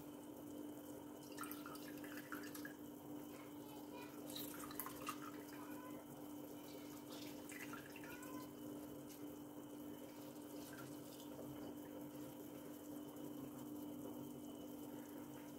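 Faint trickling and dripping of juice into a glass jug as sweet lime halves are squeezed by hand, with a few light clicks of a spoon against the jug. A steady low hum runs underneath.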